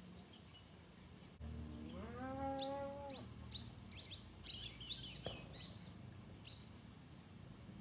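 A drawn-out animal call about a second and a half in, rising in pitch and then held for about a second and a half. Small birds chirp through the middle of the clip in quick high notes, most densely around five seconds in.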